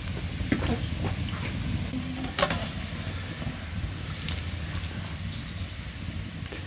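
Khajoor dough pieces deep-frying in hot oil in an iron pan, a steady sizzle over a low rumble. A few clicks and scrapes of a metal skimmer against the pan as the fried pieces are lifted out, the sharpest about two and a half seconds in.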